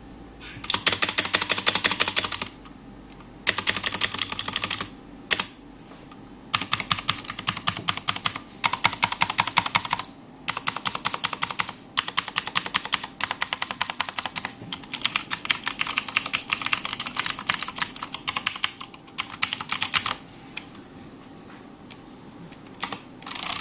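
Redragon Kumara mechanical keyboard with clicky blue switches being typed on fast, in runs of rapid clicking a second or several seconds long with short pauses between them.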